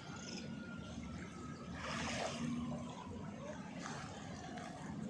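Outdoor ambience: a steady low rumble, with a brief rush of noise about two seconds in.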